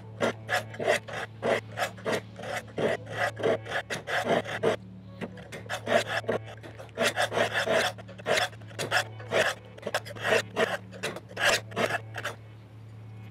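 Steel folding-knife blade drawn down diamond sharpening rods in a V-shaped rod sharpener, a rapid run of rasping strokes about three a second, alternating between the two rods, with a short break about five seconds in. The edge is dull and is being reground on the diamond.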